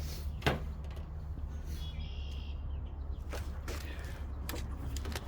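Scattered sharp clicks and knocks of washing-machine parts being handled and worked on during a teardown: one about half a second in, then several between about three and five seconds. A steady low rumble runs underneath, and a faint short high chirp comes about two seconds in.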